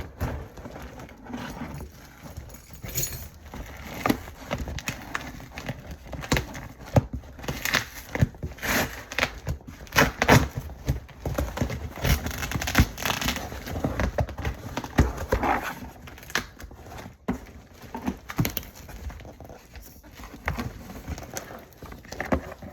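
Hands handling a shipping package: irregular knocks and clatter mixed with rustling of packaging.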